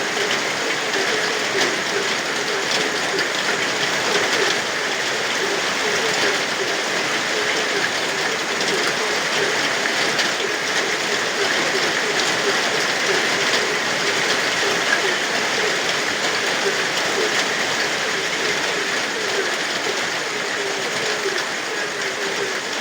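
Steady rain falling, with frogs croaking continuously underneath: a fast, unbroken run of short, low, repeated calls.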